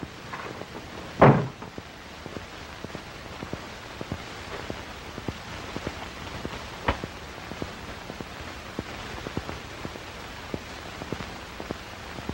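Steady hiss with dense clicks and crackle from a worn 1930s film soundtrack. One loud short thump about a second in, a door shutting.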